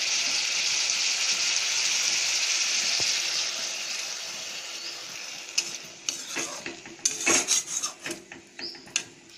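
Potatoes and papaya frying in spiced oil in a kadai, sizzling steadily; the sizzle dies away over the first half as water is poured in. Then a flat metal spatula scrapes and taps against the pan several times as the curry is stirred.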